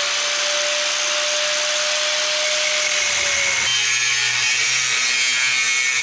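Handheld power cutting tool running at full speed as it cuts the edge off a vehicle mud flap. A steady whine rides on the noise at first; a little over halfway through the whine stops and the sound turns rougher as the tool bites in.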